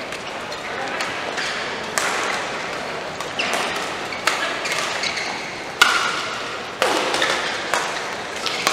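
Sporadic sharp hits of rackets on shuttlecocks and short squeaks of shoes on the court mat, ringing in a large sports hall over steady hall noise.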